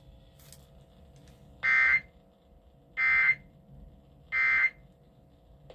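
Three short bursts of Emergency Alert System end-of-message data tones (the SAME "NNNN" signal) played over a radio, a little over a second apart, marking the end of the alert test.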